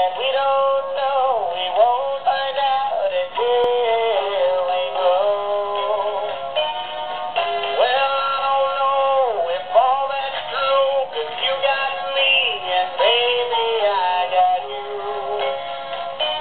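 Animated plush West Highland terrier toys singing a song in a high electronic voice over a music backing, sounding thin with no bass.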